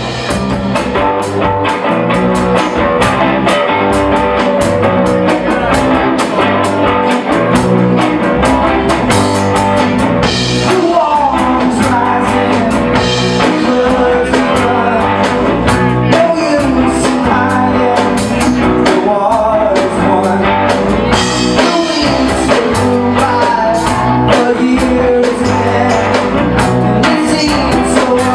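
A live rock band plays its song with a drum kit, bass and guitar, driving along at a steady beat.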